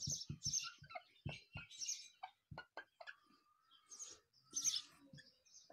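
Marker pen writing on a whiteboard: a string of short squeaks and light taps as each stroke is drawn.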